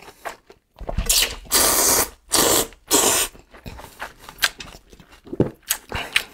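A person loudly slurping noodles from a bowl of broth, about four hissing slurps in the first three seconds, followed by quieter wet chewing and mouth clicks.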